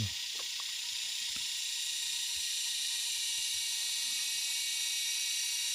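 Steady, high-pitched chorus of forest insects, a continuous hissing drone, with a few faint ticks in the first second or so.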